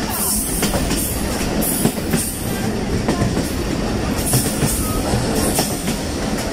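Passenger train running, a steady rumble and hiss with wheels knocking and clattering over the rails.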